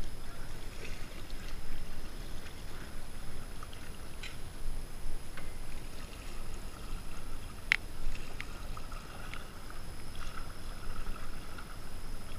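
Water trickling and splashing softly around a small boat's hull, with a low wind rumble on the microphone and a few light knocks, the sharpest a little past the middle.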